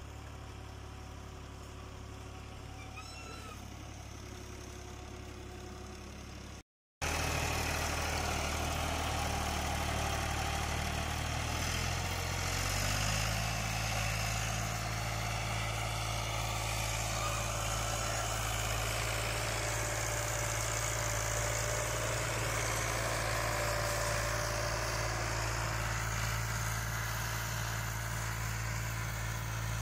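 New Holland Ghazi 55 hp diesel tractor engine running steadily under load while pulling a cultivator through the field. After a brief break about seven seconds in, the engine is louder, and its note steps up a little a few seconds later.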